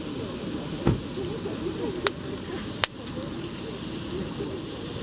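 Campfire of damp firewood hissing steadily, with three sharp pops about a second apart.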